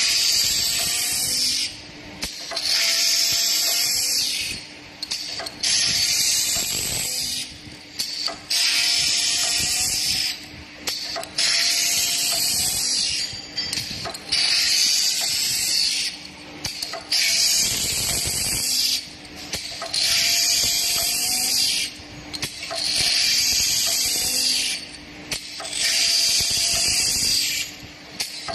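Wooden paint-brush handle sanding machine at work: a high hissing grind in repeated cycles of about two seconds each, dropping off briefly between cycles, over a steady motor hum.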